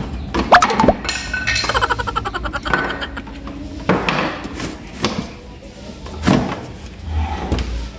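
Hammer working a wooden shipping crate open: sharp knocks with short rising squeaks of nails being pulled in the first second, a fast creaking rattle of wood and nails about two seconds in, then scattered knocks as the crate's wooden slats are handled.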